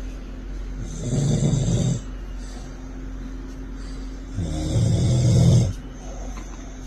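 An adult snoring: two long, low snores about three seconds apart, each lasting about a second.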